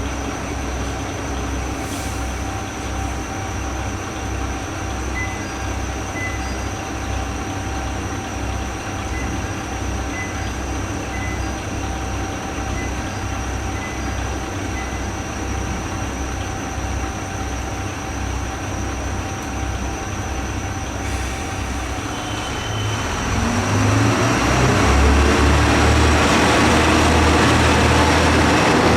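Joso Line diesel railcar engine idling with an even low throb, then throttling up about 23 seconds in and running louder under load, as when the railcar pulls away.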